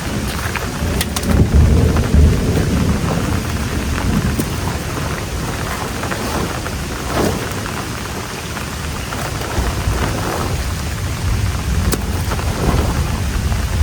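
Heavy rain pouring steadily, with deep rumbling swells, loudest about two seconds in, and scattered sharp drop ticks.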